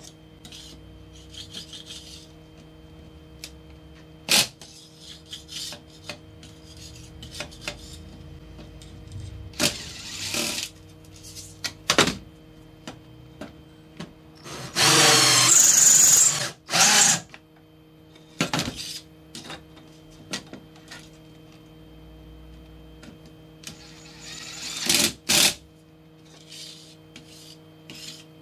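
Cordless drill running and drilling into a steel plate, one loud run of about two seconds in the middle followed by a short second run, with scattered clicks and knocks of tools being picked up and set down on the metal around it.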